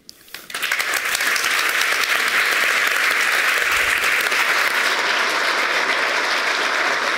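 Audience applauding: many hands clapping, starting about half a second in and keeping up evenly.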